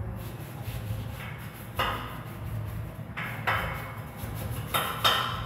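Sharp metal knocks and clanks from a metal ceiling rack being worked on by hand, a few separate strikes about two, three and five seconds in, over a steady low hum.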